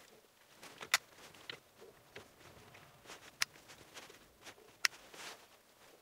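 Hand wiring work in an electrical distribution board: three sharp clicks, about a second in, about three and a half seconds in and near five seconds in, over quiet rustling of wires and fingers at the terminals.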